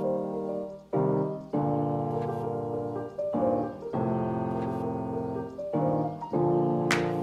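Background piano music: sustained chords that change every second or two, with a few short crisp hits near the end.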